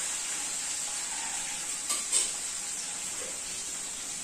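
Boiled chicken pieces frying in hot coconut oil in a small wok: a steady sizzle. Two short clinks about two seconds in.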